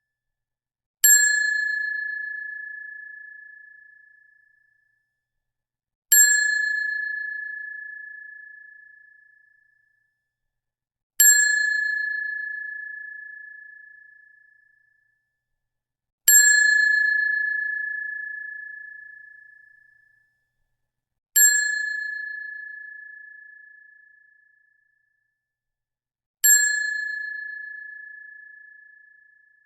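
A high-pitched metallic ding, a 'correct answer' style ting, struck six times about five seconds apart. Each ding starts sharply and rings out, fading over three to four seconds.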